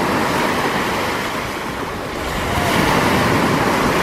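Small sea waves breaking and washing in at the shoreline, the surf swelling twice.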